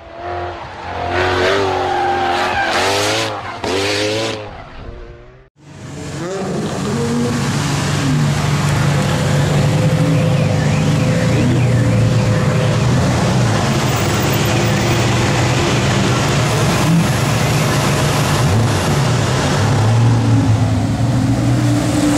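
Lamborghini Gallardo V10 engines. In the first seconds the engine revs up and down several times in quick blips. After a brief break it settles into a steady low running note, with a few light revs as the cars roll slowly past.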